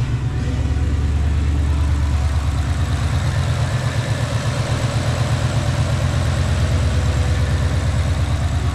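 2015 Ford Mustang's 5.0-litre V8 idling steadily, with an even low pulse.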